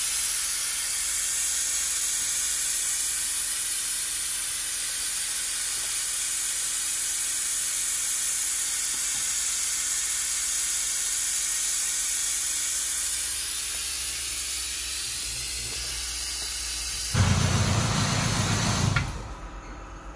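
Steady, loud hiss like spray or escaping air. Near the end it swells into a louder rush with a low rumble for about two seconds, then cuts off suddenly.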